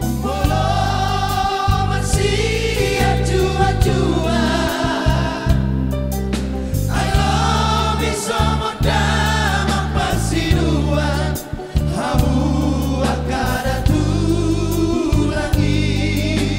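A Batak-language song sung by several voices over a steady, bass-heavy band accompaniment.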